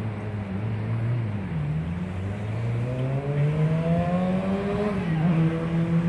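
A motor engine running, its pitch rising steadily for a few seconds as it speeds up, then holding level near the end.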